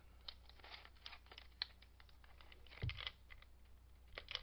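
Small clicks and scrapes from the metal case of a Spencer's logger's tape being turned over by hand, with a soft thud about three seconds in and another near the end.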